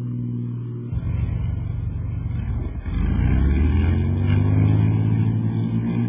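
Piston engines of a twin-engine propeller plane running. About three seconds in they speed up, rising in pitch into a loud, steady drone.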